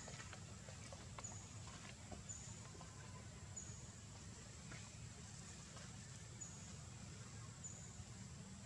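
Faint outdoor ambience: a steady high insect drone with a short note repeating about once a second, over a low rumble and a few faint ticks.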